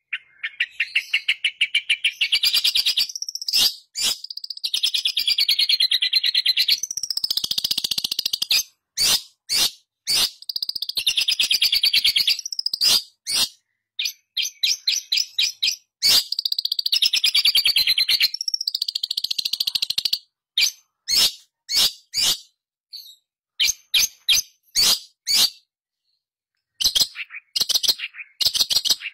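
Long-tailed shrike (pentet) singing: long runs of very fast, high chattering notes lasting a few seconds each, broken by short pauses, giving way in the last third to spaced single calls and short bursts.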